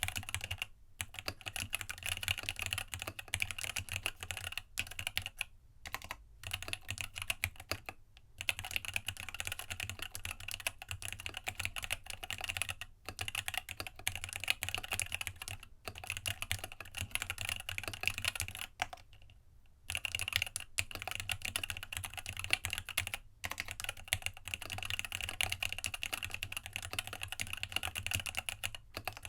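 Continuous fast typing on a RAMA WORKS U80-A mechanical keyboard with Gateron Tealios linear switches, a brass plate, an internal dampener and PBT keycaps: dense clacking keystrokes, broken by a few brief pauses.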